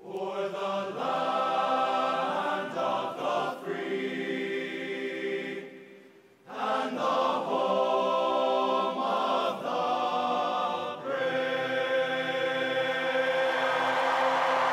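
A choir singing long held notes in chords, with a break about six seconds in. A hiss of noise builds under the singing toward the end.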